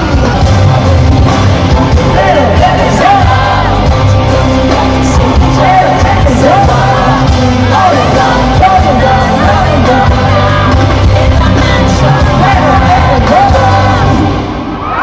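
Live concert music over a hall's PA: a sung pop/hip-hop vocal over a heavy bass beat, with fans yelling and whooping along. The music drops in level near the end.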